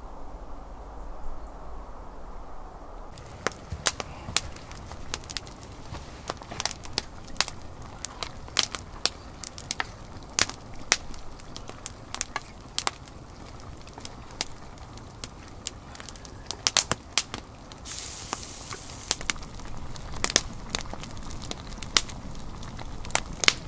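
Wood campfire crackling, with sharp pops several times a second starting a few seconds in, and a brief soft hiss about three quarters of the way through.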